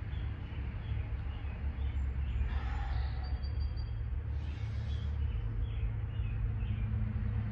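A steady low rumble, with a few faint short high chirps in the middle.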